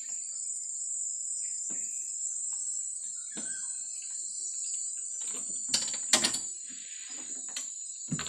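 Scattered light clicks and metal clinks of hands and tools working around the oil filter in a car's engine bay, with a cluster of sharper clinks about six seconds in, over a steady high-pitched drone.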